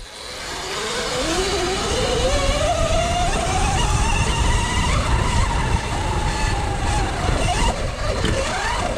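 Electric dirt bike's motor whining under acceleration. The pitch climbs steadily for about five seconds, then falls as it slows, with wind and tyre noise throughout. Near the end a second whine sweeps past.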